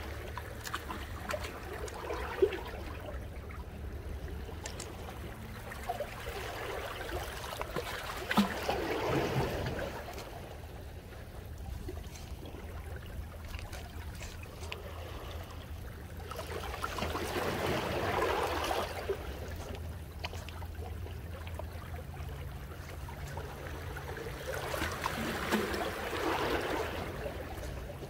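Small waves washing and lapping against jetty rocks, swelling and ebbing three times, roughly every eight to nine seconds, over a low steady rumble.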